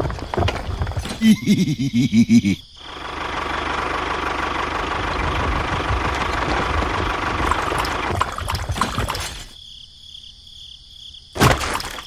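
Small toy tractor driving over stones in sand: rapid clicks and crunches for the first couple of seconds, then a steady motor hum for about seven seconds that drops away, with a short loud burst near the end.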